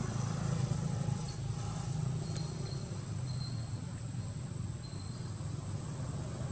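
Outdoor background noise: a steady low rumble with a thin, high, steady whine above it and a few faint short high notes.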